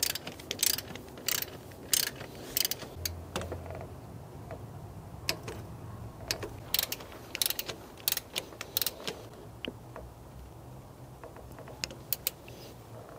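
Ratcheting clicks of a torque wrench tightening an alternator mounting bolt to 37 ft-lb. The clicks come in runs, one stroke after another, with a pause of a couple of seconds between runs and a few last clicks near the end.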